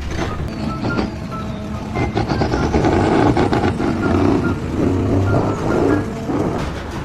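Heavy machine or truck engine running on a job site, with a reversing alarm beeping over it.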